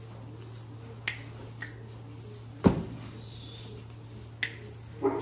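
A handful of sharp clicks and knocks, the loudest a heavier knock about halfway through, over a steady low hum. These are the sounds of a goat being handled in a pen of metal gates and hurdles.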